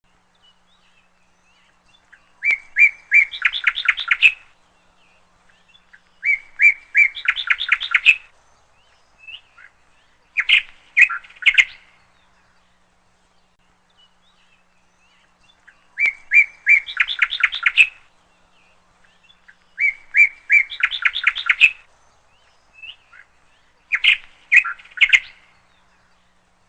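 A songbird singing the same phrase six times, about every four seconds. Each phrase is a few even chirps followed by a quick run of higher notes.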